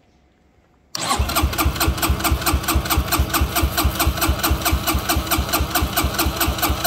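Motorcycle electric starter motor cranking the single-cylinder engine with its spark plug out, so it spins over steadily without firing. It starts about a second in as an even, rapid chugging rhythm: a continuous cranking load test of a 12 V lithium iron phosphate battery.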